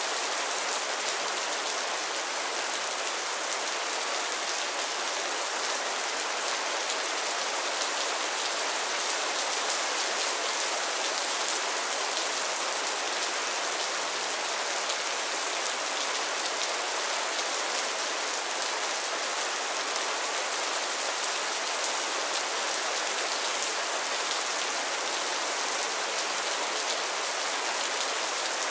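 Mild rain falling steadily on a roof and the ground, a dense even hiss of many small drops with no change in strength.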